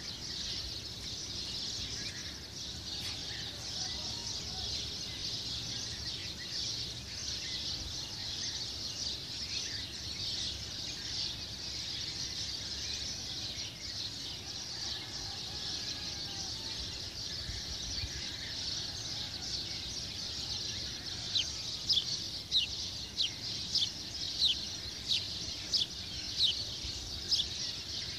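Birdsong ambience: a steady high chorus in the background, and in the last quarter a bird repeating short, sharp chirps about twice a second.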